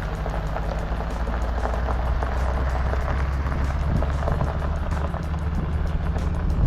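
A vehicle driving, heard from inside: a steady low engine and road rumble with dense crackling over it, typical of tyres on a gravel road.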